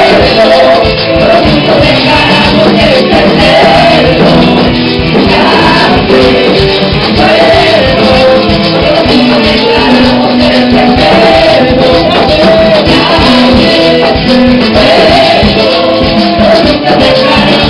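Live church praise music, loud and continuous: women singing lead into microphones over a band with congas, electric guitar and keyboard.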